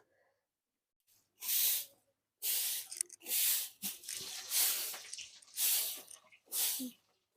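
Hot cooking oil sizzling in a pan, coming in a string of short hissing bursts about one a second.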